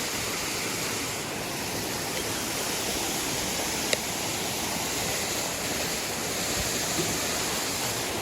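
Steady rushing of running water, with a single sharp click about four seconds in.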